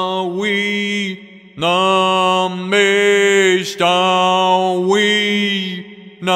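A man chanting a healing mantra in long held notes at a nearly steady pitch, with two short pauses for breath.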